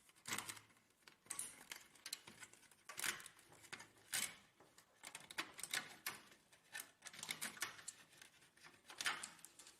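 Faint, irregular clicks and rustles of cables being pulled out of an HP LaserJet's plastic cable guides.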